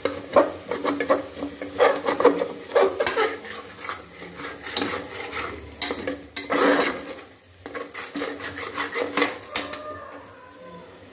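Steel spatula scraping and clinking against the sides and bottom of an aluminium pressure cooker in irregular strokes, stirring fried onions and spices; the strokes stop near the end.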